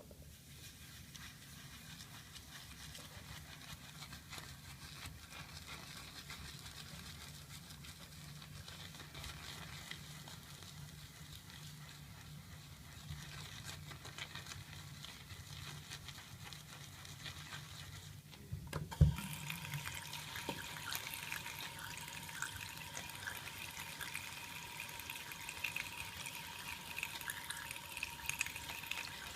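Low, faint steady hum, then about two-thirds of the way through a sharp knock, and a water tap running into a sink with a steady hiss and small splashes.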